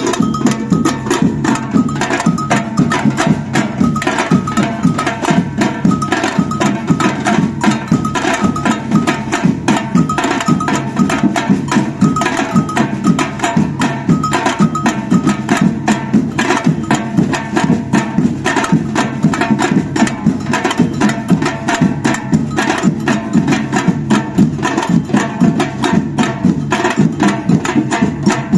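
Batucada samba percussion ensemble playing a fast, dense rhythm: deep bass drums under rapid snare and wood-block-like strokes. A high repeating bell figure rides on top and drops out about halfway through.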